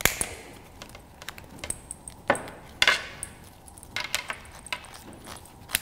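Hands working the rubber boot and strap of a Suunto HelO2 dive computer: irregular light clicks, taps and rubbing scrapes of rubber and plastic, the loudest about two and a half and three seconds in.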